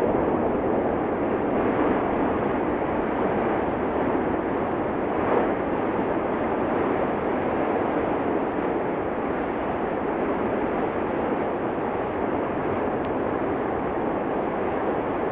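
Steady roar of the Cumbre Vieja volcano erupting, an even rushing noise with no distinct blasts, swelling slightly about five seconds in.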